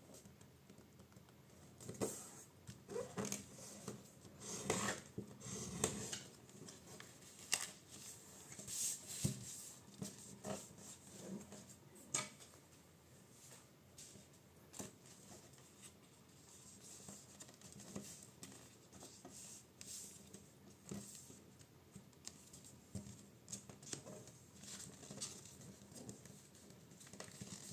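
Sheet of printer paper crackling and rustling as fingers fold it and press and slide along the creases, in irregular crinkles and light taps. The sounds are busier and louder in the first half and sparser later.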